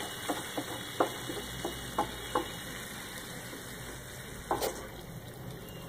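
Wooden spatula tapping and scraping in a pan as it presses vermicelli and water flat. A string of light taps comes in the first couple of seconds and one louder tap later, over a steady low hiss.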